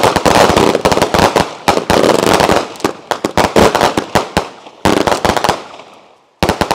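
Consumer firework cakes (Raccoon Strobing Willow 200-gram cakes) chained into a 300-shot barrage, firing a rapid, dense volley of shots and aerial breaks. The volley thins out after a couple of seconds into scattered single shots, with a last pair of shots near the end as the barrage finishes.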